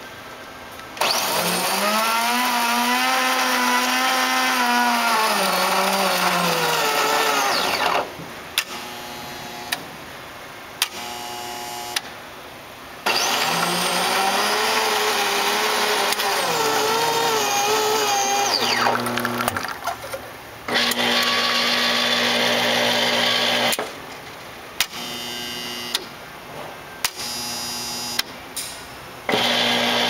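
Estro super-automatic espresso machine running a brew cycle. A motor whine rises and falls over several seconds, twice, with clicks between. A steady low hum follows for a few seconds, then shorter mechanical runs and clicks.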